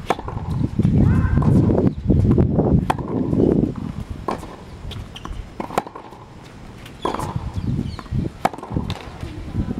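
Tennis rally on a hard court: rackets striking the ball with sharp pops, back and forth roughly every second and a half. A low rumbling noise is loudest over the first few seconds.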